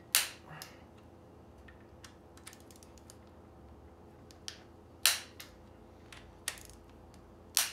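Scattered sharp metal clicks and clacks from a torque wrench and its socket extension being fitted to and turned on connecting-rod bolts, the loudest about five seconds in, over a faint steady hum.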